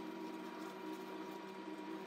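Steady hum of a running kitchen appliance, with a few low tones and a faint higher whine.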